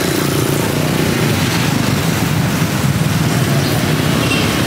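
Motor vehicle engine running steadily amid outdoor street noise.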